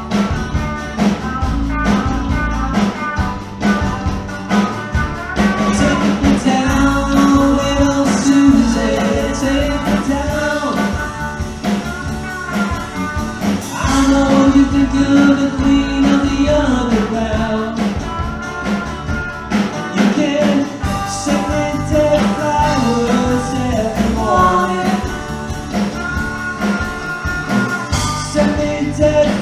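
Live band playing a country-rock song: electric and acoustic guitars over a steady beat.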